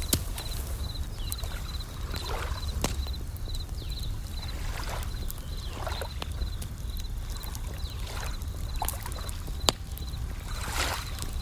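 Japanese bell crickets (suzumushi) chirping in a steady run of short high notes, about two a second, over campfire crackling with sharp pops, one loud pop near the end. Beneath them, a low rumble and occasional swelling washes of ocean waves.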